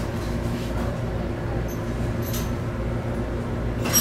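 Steady low hum inside an ET127 series electric train standing still, from its onboard equipment and air conditioning, with a few faint clicks.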